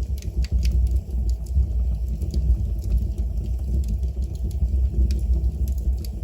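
Wood fire burning in a fireplace: a steady low rumble of the flames with frequent sharp crackles and pops from the burning wood.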